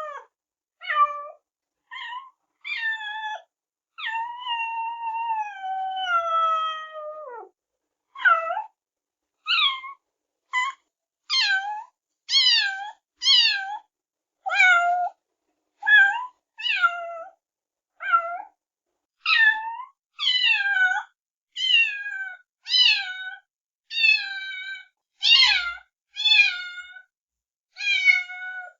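Kittens meowing over and over: about twenty short, high meows in quick succession. About four seconds in comes one long drawn-out meow that drops in pitch at its end.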